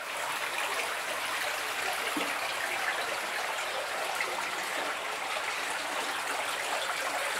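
Steady noise of running water, a continuous trickling rush with no breaks.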